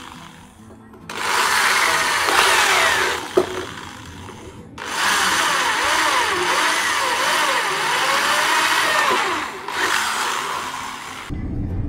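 Handheld electric drill with a large bit boring holes through the wooden top of a phin, run in three bursts: about a second in for two seconds, from about five seconds for nearly five seconds, then briefly near the end. Its whine rises and falls as the trigger is eased and the bit bites into the wood.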